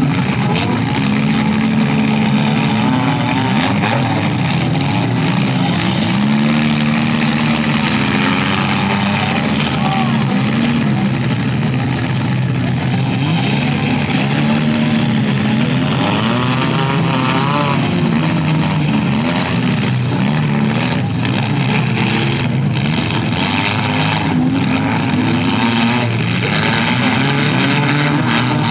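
Several compact cars' engines running and revving at once, their pitches rising and falling against one another over a constant noisy background.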